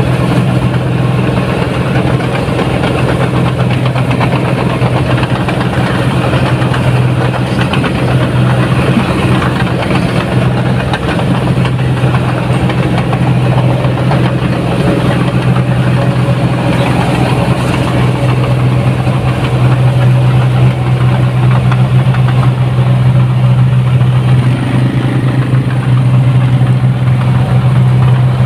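Diesel engine of a 1550 rice combine harvester running steadily as the machine travels along a track, a constant deep drone that grows a little louder in the second half.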